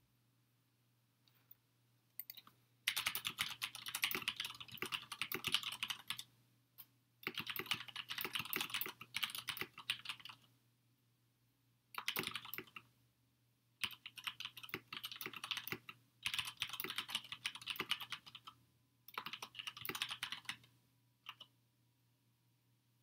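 Typing on a computer keyboard: several bursts of quick key presses, each one to three seconds long, with short pauses between them.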